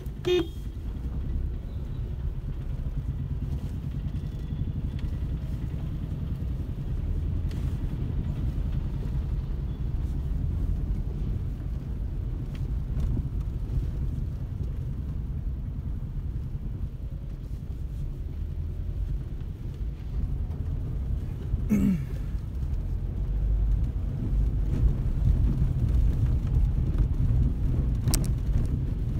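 A car driving: steady low rumble of engine and tyres on the road. A brief pitched squeak sounds right at the start, and another short one, falling in pitch, about 22 seconds in.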